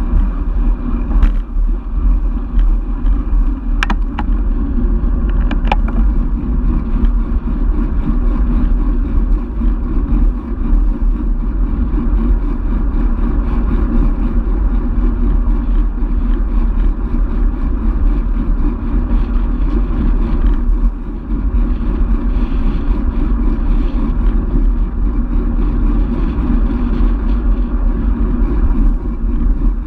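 Wind rushing over the microphone of a camera mounted on a road bike in motion, with the steady hum of the tyres on the asphalt. A few sharp clicks come in the first six seconds.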